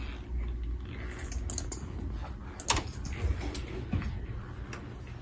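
Typing on a computer keyboard: scattered, irregular key clicks over a steady low room hum.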